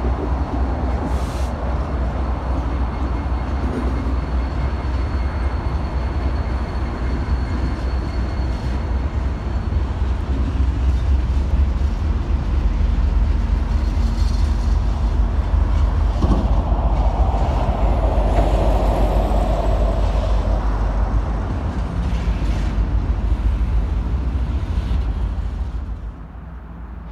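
Union Pacific diesel freight locomotives passing, then double-stack container cars rolling by on the rails: a loud, steady rumble of engines and wheels. It drops off sharply near the end.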